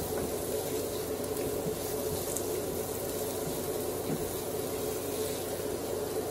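Onion and garlic sizzling steadily in hot oil in a pan, the garlic just starting to brown.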